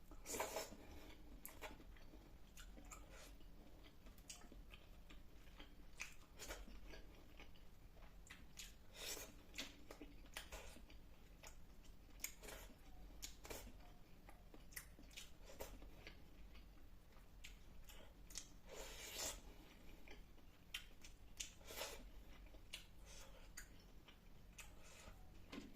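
Faint close-up eating sounds: a person chewing and biting a mouthful of fish curry, rice and salad, with irregular wet clicks and a few louder crunchy bites.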